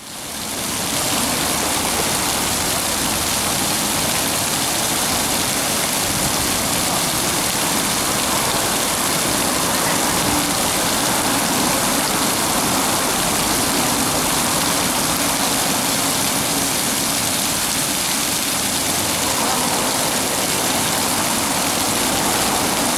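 Ground-level splash fountain: water jets spouting up and splashing steadily onto wet paving tiles, fading in over the first second.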